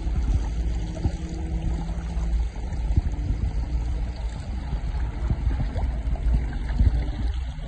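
Water rushing and splashing along the hull of a folding kayak sailing downwind, with wind buffeting the microphone.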